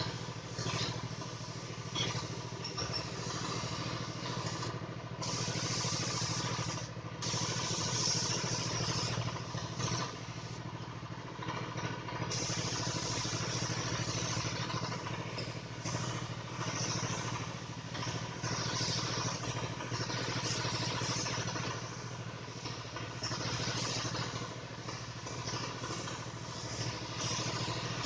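Paint spray gun hissing in on-off bursts a few seconds long, starting and stopping abruptly, over a steady low hum.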